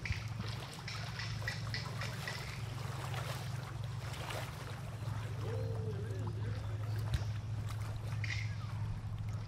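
Lakeside ambience: small waves lapping on the water, with a steady low hum underneath and a few faint, short distant calls.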